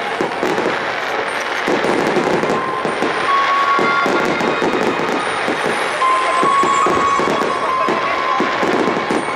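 Fireworks display: aerial shells bursting in a dense, continuous run of bangs and crackling.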